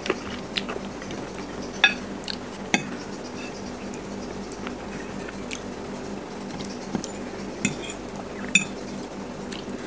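A metal fork clinking and scraping against a ceramic plate in several sharp taps, the loudest about two seconds in, over a steady low hum.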